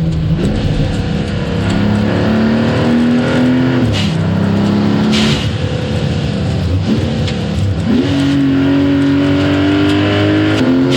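Porsche 911 992.2 Turbo S turbocharged flat-six through a SOUL performance exhaust, pulling hard with its pitch climbing. The pull breaks sharply and climbs again at about four, seven and eight seconds in, as the car shifts gears.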